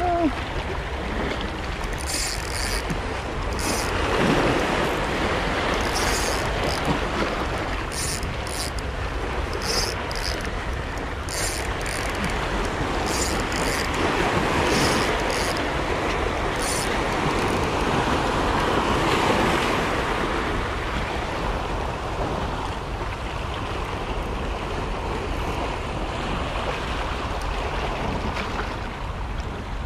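Small waves washing and breaking over shoreline rocks, swelling and ebbing, with wind buffeting the microphone. Brief high ticks come now and then in the first half.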